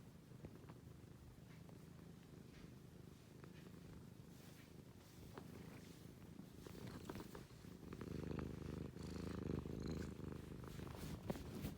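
Domestic cat purring steadily, low and faint, growing louder over the last few seconds.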